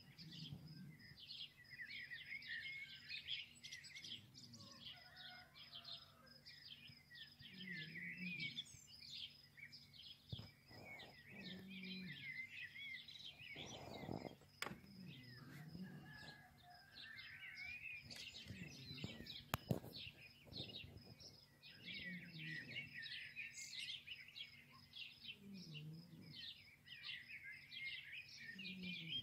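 Many small birds chirping and twittering in a dense, continuous chorus, with a couple of sharp clicks about two-thirds of the way through.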